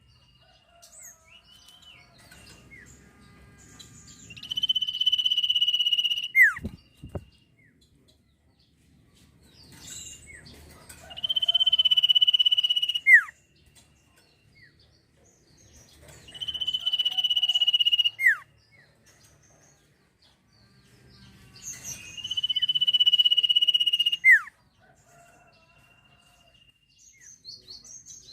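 Sirtu bird singing: a high, steady trilled note held for about two seconds and ending in a quick downward slur, repeated four times about every six seconds. A couple of brief low thumps come about a third of the way in.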